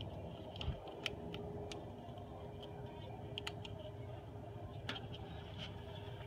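Light, irregular metal clicks and ticks from handling the distributor cap, its spring clips and the ignition leads on a 1929 Ford Model A engine, over a faint steady hum.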